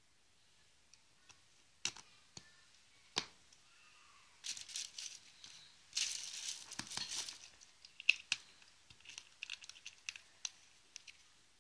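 A clear plastic zip-lock bag crinkling in bursts as it is handled, with sharp clicks and taps of empty plastic squeeze bottles and their black caps knocking together.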